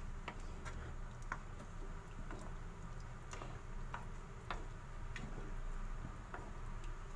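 Wooden spatula clicking and scraping against a nonstick frying pan as a thick rice-and-broth mixture is stirred. The stirring scrapes up rice that has stuck to the bottom of the pan. The irregular light clicks come every half second or so.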